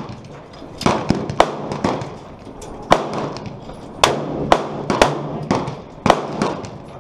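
Rifle shots from several shooters on a firing range: about ten sharp cracks at irregular intervals, some loud and close, others fainter, each with a short echo.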